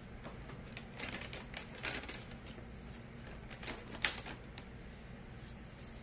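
Irregular light clicks and taps of small hard objects being handled on a work surface. The sharpest tap comes about four seconds in, then the tapping stops, leaving a low steady hum.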